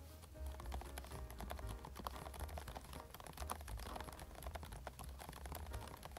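Fast typing on a Varmilo Minilo 75% mechanical keyboard with Prestige Silence switches: a rapid, irregular stream of soft key strokes.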